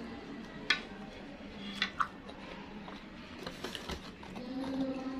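Quiet eating sounds of a few sharp clicks, one about a second in and a couple near two seconds: a plastic spoon tapping a black bowl of es campur and the mouth smacking while eating it, with a faint low hum near the end.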